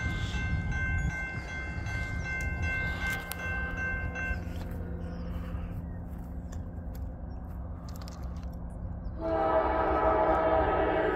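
Railroad grade-crossing bell ringing as the gates lower, stopping about four seconds in. About nine seconds in, the approaching Norfolk Southern train's locomotive air horn begins a long, loud blast.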